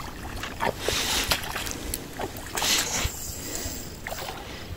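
Water splashing and sloshing in irregular surges as a hooked catfish is fought in, louder about a second in and again past the middle.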